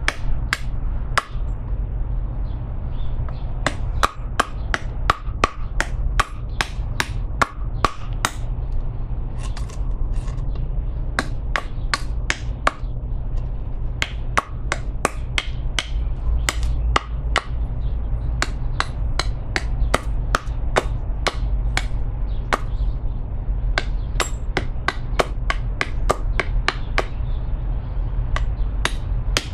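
Odenwolf W Sow Catcher fixed-blade knife hacking at a piece of wood to carve a pointed end: a steady run of sharp chopping strikes, about two to three a second, over a steady low hum.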